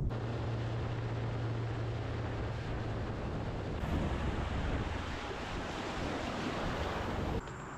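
Bass boat underway: wind rushing over the microphone and water noise, with a low steady motor hum for the first few seconds. The sound cuts off abruptly near the end.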